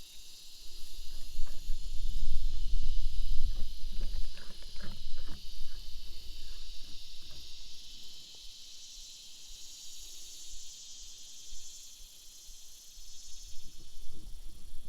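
Insects droning steadily in a high, buzzing chorus that swells and pulses in the second half. For the first few seconds a louder low rumble with a few clicks sits under it.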